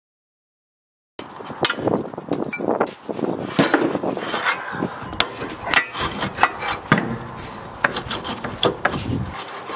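Silence for about the first second, then irregular knocks, clicks and scrapes of bricks being handled and set in place by hand, brick against brick and mortar.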